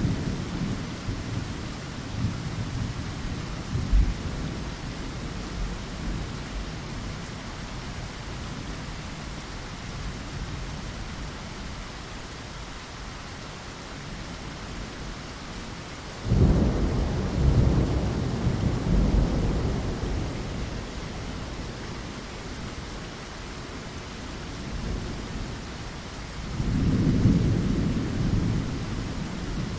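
Steady rain with rolling thunder: a loud low rumble of thunder breaks in suddenly about halfway through and rolls on for several seconds, and another swells up near the end.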